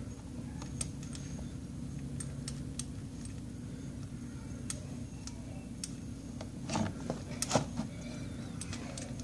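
Light metallic clicks and clinks from the motorcycle's drain plug, its washer and tools being handled, with a couple of louder knocks about seven seconds in, over a steady low hum.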